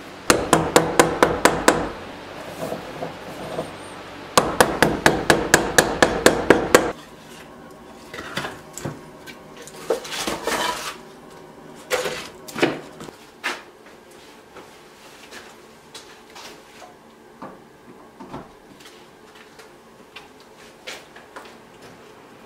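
Two quick runs of sharp knocks open the sound, a few strikes a second, each lasting about two seconds. Then come scattered wooden clunks and clatters as split firewood is loaded into a small cast-iron wood stove's firebox.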